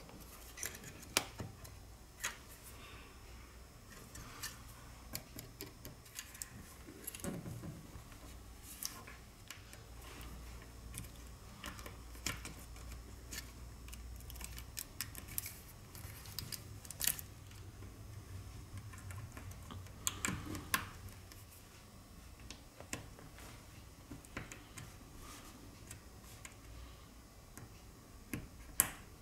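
Scattered small clicks and taps of tools and parts being handled while a smartphone is taken apart, with a few sharper clicks standing out, over a faint low hum.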